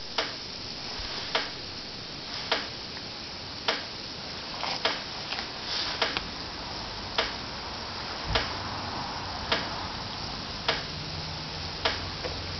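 Homemade HHO electrolysis generator running during a gas-output test: a steady fizzing hiss with a sharp tick a little more than once a second. A low hum comes in about two-thirds of the way through.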